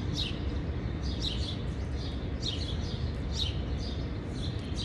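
Small birds chirping, short falling notes repeated about once a second, over a steady low rumble.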